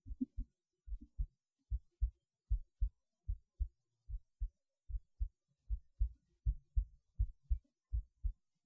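Human heartbeat heard through a cheap acoustic stethoscope: a steady run of double thumps (lub-dub), about one beat every 0.8 seconds, all low and dull.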